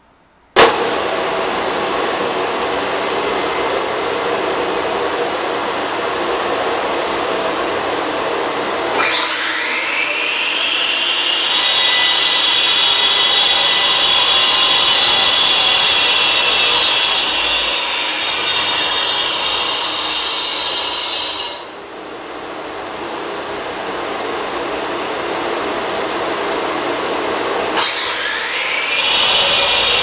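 Shop vacuum running steadily. About nine seconds in, an Evolution electric concrete saw whines up to speed and its blade grinds dry through the concrete slab with a loud, high rasping whine. It stops sharply a little past halfway, then winds up and cuts again near the end.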